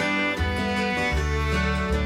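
Background music: a fiddle playing a country or bluegrass-style tune over guitar and bass notes.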